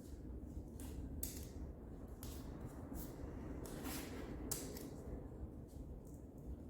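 Tape being pulled off a roll and pressed down in several short rasping pulls at irregular intervals, over a faint steady low hum.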